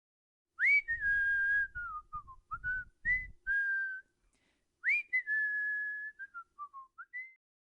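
Someone whistling a short phrase: a quick upward swoop, a held note, then a few short notes stepping down. The phrase is whistled twice.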